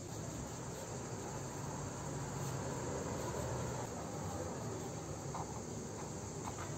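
Steady chirring of insects over a low hum, with two light taps near the end.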